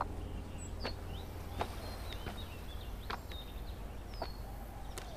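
Footsteps on grass and stones, heard as a few irregular sharp steps, with small birds chirping briefly at a high pitch over a steady low rumble of outdoor ambience.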